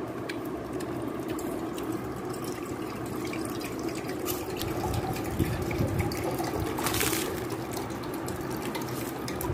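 Steady sound of running or falling water, with a brief louder rush about seven seconds in.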